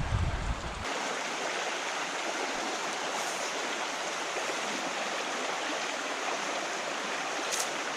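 A small mountain creek running over rocks: a steady rush of flowing water.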